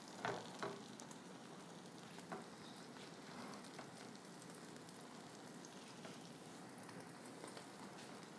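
Beaten eggs for an omelet cooking in a nonstick frying pan over low heat: a faint, steady sizzle, with a couple of light knocks in the first second.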